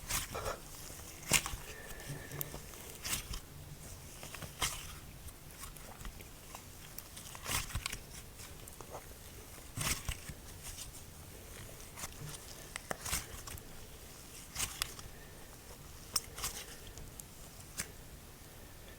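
Slime being pressed and stretched by hand, giving irregular small pops and crackles, about one or two a second; the slime is slightly stiff from the cold.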